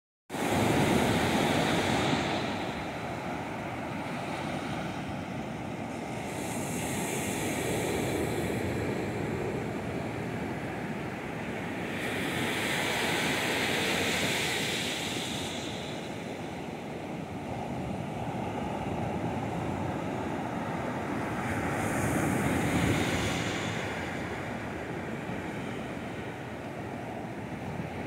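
Ocean surf breaking and washing up a sandy beach, a continuous rush that swells louder four times as waves break and run up the sand.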